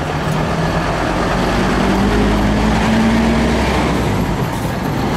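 Engine of a locomotive-styled trailer bus accelerating as the bus passes close by. Its note rises in pitch over the first three seconds or so and grows loudest about three seconds in.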